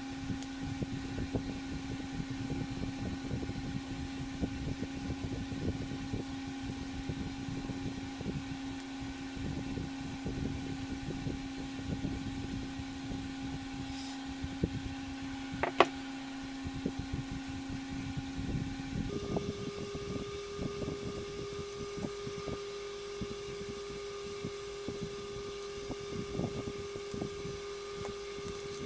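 Small clicks and taps of hard plastic pressure washer lance parts and a metal pick being handled on a table, with one sharper click about 16 seconds in. Under them runs a steady hum that jumps to a higher pitch about two-thirds of the way through.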